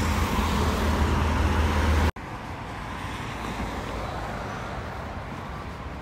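Street traffic noise with a motor vehicle's engine rumbling close by, loud and steady. About two seconds in it stops abruptly and gives way to quieter, even outdoor background noise.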